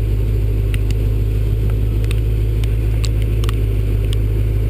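GM 350 V8 crate engine in an '82 Chevrolet S-10 pickup running steadily, a loud, deep, even hum heard from the hood, with a few faint scattered ticks.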